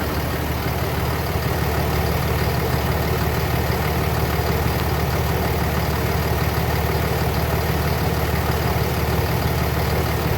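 Car engine idling steadily with the air conditioning running, during an AC refrigerant recharge.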